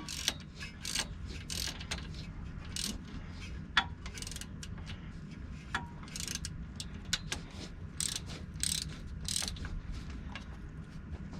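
Hand ratchet clicking in repeated short strokes as it tightens the U-joint strap bolts at the front axle yoke, with a few sharp metal clicks among them.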